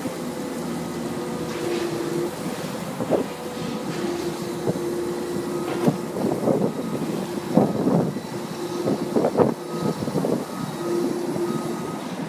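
Komatsu tracked excavator running close by at demolition work: a steady engine and hydraulic drone with intermittent squeals, broken by a series of sharp metallic clanks and crashes in the middle of the stretch.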